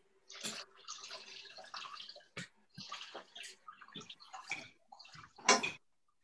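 Water running from a kitchen tap in several bursts, then one sharp knock near the end.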